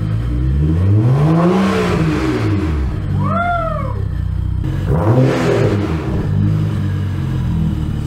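BMW N55 turbocharged straight-six revved twice with the car stationary: one long rise and fall in engine pitch over about two and a half seconds, then a shorter blip about five seconds in. Between the two revs a brief high tone rises and falls.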